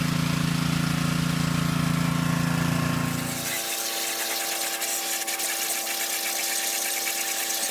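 Honda gas engine of a pressure washer running steadily. About three and a half seconds in, the deep engine note drops away, leaving a higher steady hum and hiss.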